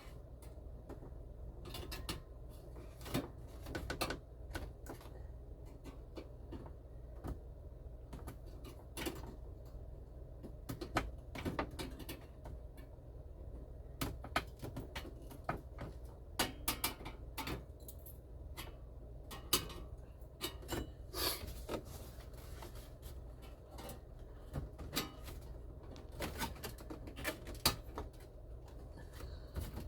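Irregular clicks, taps and small rattles of hands working plastic and metal parts while a car radio's mounting casing is fitted and its tabs pushed out to lock it in, over a steady low hum.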